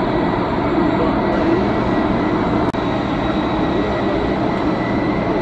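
Boeing 747-400 freighter's four turbofan engines running at taxi power: a steady rumble with thin, high, steady whines over it. A split-second gap in the sound a little past halfway.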